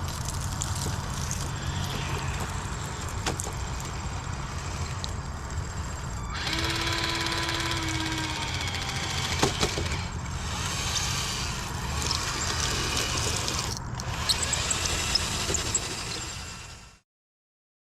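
Small electric motors of radio-controlled construction models whining as they run, rising and falling in pitch over a steady low hum, with a few sharp clicks. The sound cuts off suddenly near the end.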